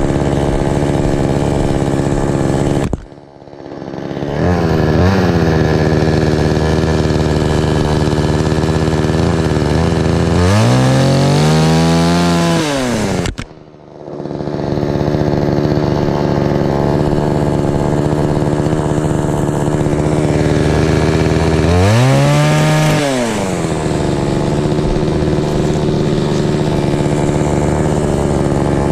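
Gas two-stroke chainsaw running steadily, revving up and back down twice, about ten seconds in and again a little past twenty seconds. The sound cuts out sharply twice, a few seconds in and about thirteen seconds in.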